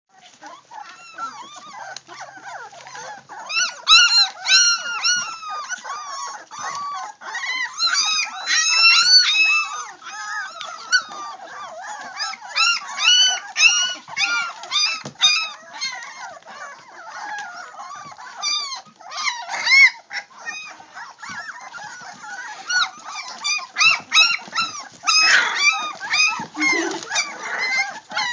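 A litter of young puppies whining and yelping together, many short, high-pitched cries overlapping without a break, with louder stretches about four and nine seconds in.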